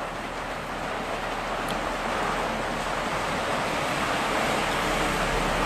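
Steady rushing of wind over the microphone with road noise from a moving vehicle, growing slowly louder.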